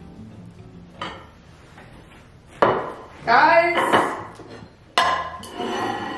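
Ceramic dinner plates clinking against one another and set down on a wooden table: a light clink about a second in, then louder clinks that ring on briefly, at about two and a half and five seconds.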